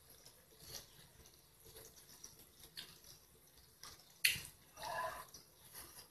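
Quiet eating sounds: small clicks of chopsticks against a porcelain bowl and soft mouth noises, then a sharp puff of breath about four seconds in, as of blowing on hot grilled meat, followed by a short hum of voice.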